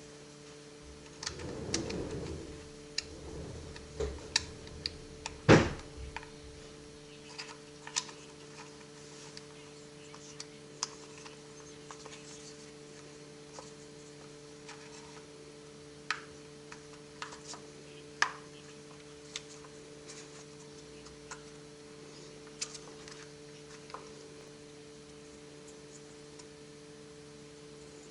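Small hard objects being handled on a bench: scattered light clicks and taps, a rustle early on and one louder knock about five seconds in. A steady electrical hum runs underneath.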